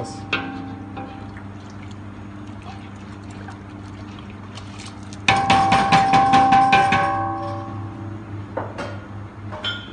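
Wooden spoon stirring soup in a large stainless steel stockpot, the liquid sloshing. About five seconds in, a loud run of quick, evenly spaced strokes lasts under two seconds with a steady tone under it, over a low steady hum.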